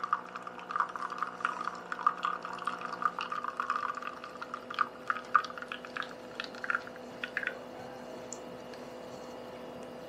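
De'Longhi La Specialista espresso machine brewing a shot: espresso pours and drips from the portafilter into a cup over the steady hum of the machine. The stream thins to scattered drips and stops about three-quarters of the way through, leaving only the hum.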